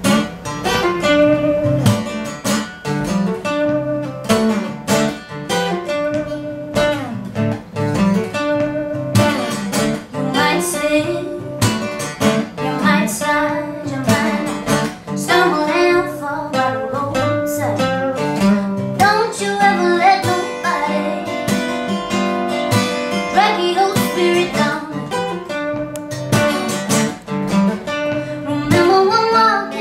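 Two acoustic guitars played together, picked and strummed in a song's opening.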